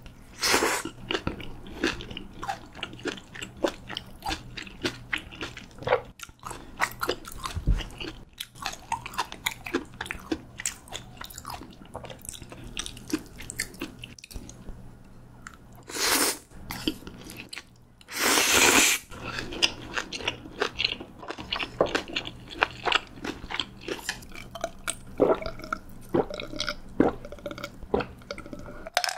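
Close-miked chewing and crunching of crispy pork belly and spicy stir-fried noodles, with two loud slurps partway through, the second longer.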